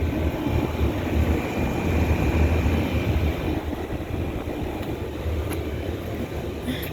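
Outdoor air-conditioning condenser units running: a steady low fan and compressor hum, with a faint high whine in the middle, easing down a little in loudness over the last few seconds.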